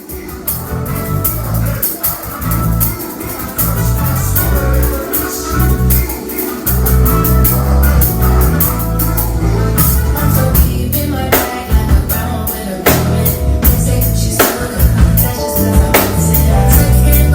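Live band music with bass, guitar and drum kit, the drum hits growing stronger and more regular about ten seconds in.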